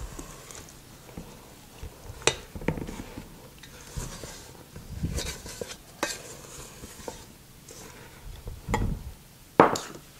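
Wooden spoon working a stiff cookie dough with chopped pecans in a stainless steel mixing bowl: irregular knocks of the spoon against the bowl with soft scraping between them, the sharpest knocks about two seconds in and near the end.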